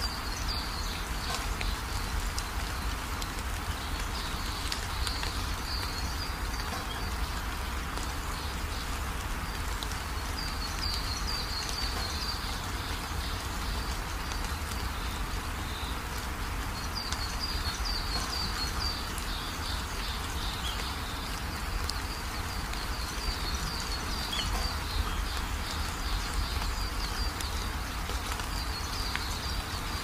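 Steady rain with a low rumble underneath, and high chirping trills from a bird or insect that come in short bouts every few seconds.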